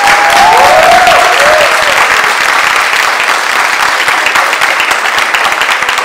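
Small crowd applauding with dense, fast clapping, with a few rising-and-falling cheering whoops in the first two seconds; the applause eases off slightly toward the end.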